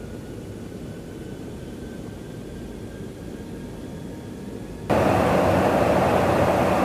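Steady low rumble of jet engines and airflow inside a KC-135 Stratotanker's cabin. About five seconds in it cuts suddenly to a much louder, brighter rush of engine and air noise at the tanker's boom operator window.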